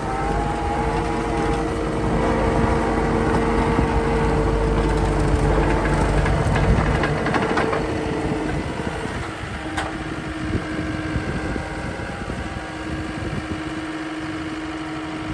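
John Deere 333G loader's diesel engine running with a steady drone and whine. It is loudest for about the first eight seconds, then eases to a quieter, lighter steady note.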